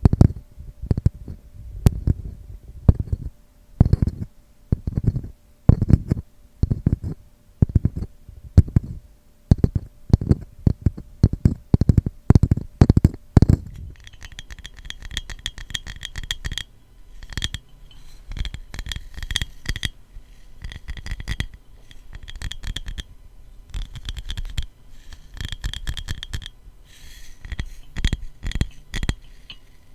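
Tapping on a wooden ladle: dull knocks about twice a second, quickening towards the middle. About halfway through the tapping moves to a glass bottle, with fast light clicks that ring with a clear high tone.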